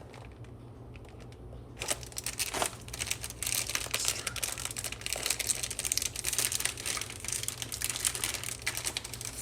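Snack wrapper crinkling and rustling as the mochi package is handled and opened, starting about two seconds in with dense, irregular crackles.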